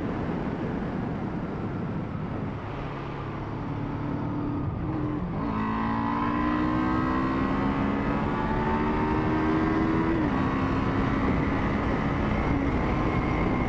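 Kawasaki GPZ 500S parallel-twin engine pulling under throttle, with heavy wind noise over the microphone. About halfway in the engine note comes through clearly and climbs slowly in pitch, dips a few seconds later, then holds steady.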